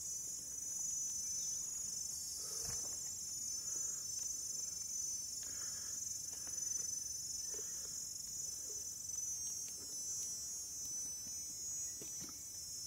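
Jungle insects calling in a steady, high-pitched drone of several held tones.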